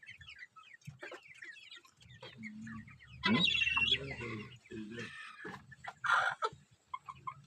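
Chickens clucking and calling, with many short chirps and a louder squawk about three seconds in and another around six seconds.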